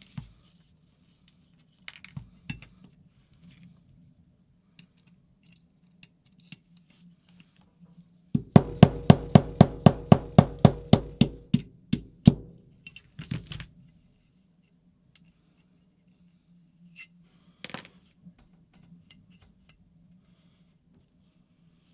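Rapid metallic tapping, about four or five sharp strikes a second for some four seconds starting midway, as a stuck roto-breach rod in a paintball marker is driven forward; a few lighter clicks and knocks of metal parts being handled before and after.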